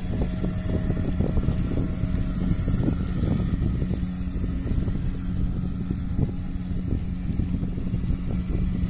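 Steady low motor drone with an unchanging hum, mixed with wind rumbling on the microphone.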